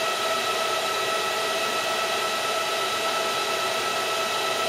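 Chenbro RM91250 storage server's cooling fans running loud and steady during start-up: an even rushing noise with several steady whining tones.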